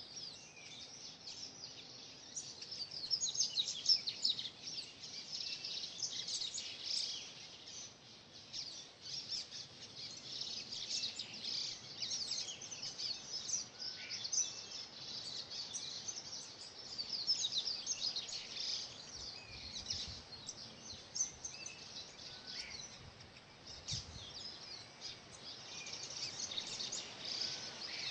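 Mixed chorus of many Brazilian cerrado birds singing and calling at once: dense, overlapping high chirps without a break, with a few lower falling whistles now and then.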